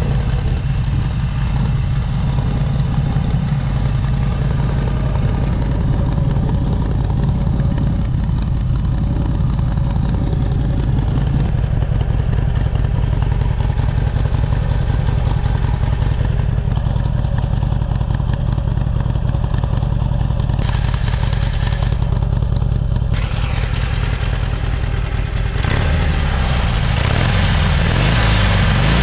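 Harley-Davidson Sportster Superlow 883's air-cooled 883cc Evolution V-twin idling through its twin staggered shorty exhausts with dual mufflers, a steady low beat. In the last few seconds it gets louder and more uneven.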